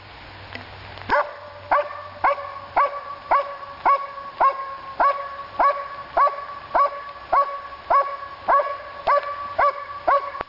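Dog barking in a steady, even rhythm, just under two barks a second, starting about a second in.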